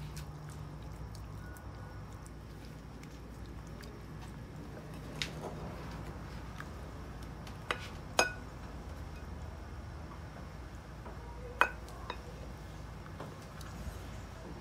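Raw chicken pieces being dipped by hand in a china bowl of beaten egg: faint wet handling and a few light clinks against the bowls, the sharpest near the end, over a low steady hum.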